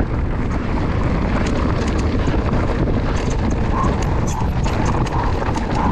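Mountain bike riding down a rough trail: wind buffeting the microphone as a steady low rumble, with a rapid clatter of clicks and rattles as the bike runs over stones.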